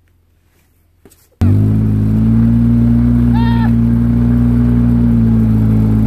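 Motor vehicle engine towing a wakeboarder across snow, running steadily at a low hum; it cuts in abruptly about a second and a half in. A brief high call sounds about halfway through.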